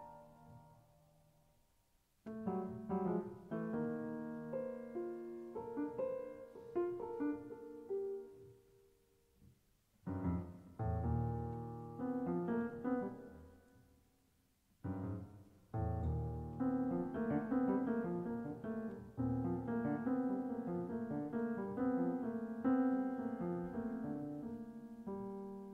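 Solo piano playing in separate phrases with short pauses between them. Deep bass notes are struck about ten seconds in and again about fifteen seconds in.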